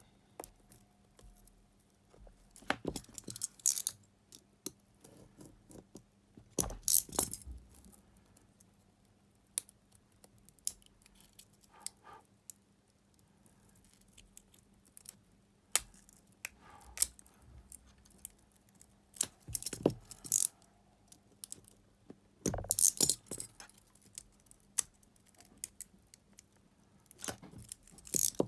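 A knife scraping and slitting into the plastic wrapper of a small rechargeable battery pack. The bursts of rasping cuts come several times, with sharp clicks and taps as the pack is handled between them.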